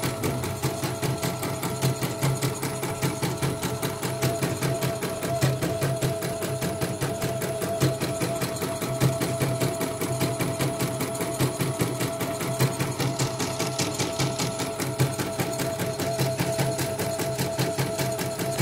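CNY portable embroidery machine stitching steadily on a test run after repair: a rapid, even clatter of needle strokes over a steady motor whine.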